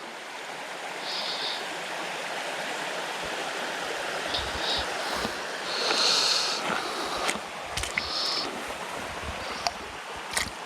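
Creek water running steadily, with a few short higher-pitched sounds and several faint clicks over it in the second half.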